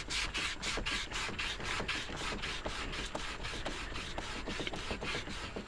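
Rapid back-and-forth scrubbing on the wooden end panel of a Memorymoog synthesizer, about five or six scraping strokes a second, as grime from decomposed case foam is worked off the wood with isopropyl alcohol.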